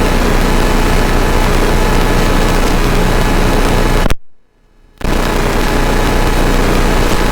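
Steady drone of a Flight Design CTLSi's engine and propeller in the cockpit in flight: the Rotax 912 iS four-cylinder engine. The sound cuts out for under a second about four seconds in, then comes back unchanged.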